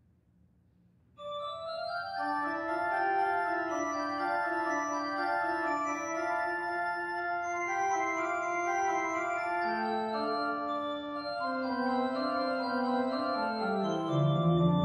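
Pipe organ playing the opening of a prelude: sustained, overlapping chords that begin suddenly about a second in, with lower notes entering near the end.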